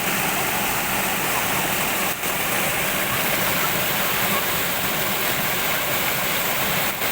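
Waterfall: a steady, even wash of falling water, briefly dipping about two seconds in and again near the end.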